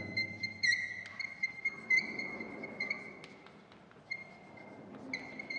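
Chalk writing on a blackboard, squeaking in a thin high tone that comes and goes with the strokes, with a few light taps. The squeak dies away about three seconds in and comes back briefly near the end.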